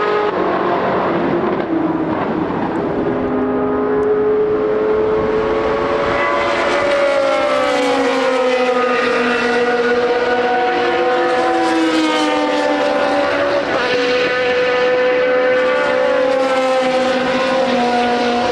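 Historic racing cars' engines running at high revs, several at once, their notes sliding up and down as the cars pass at speed.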